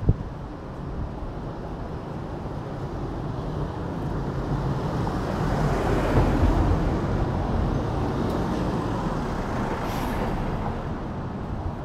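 Road traffic: a motor vehicle passing close by, its noise swelling to a peak about six seconds in and then slowly fading. A sharp click comes right at the start.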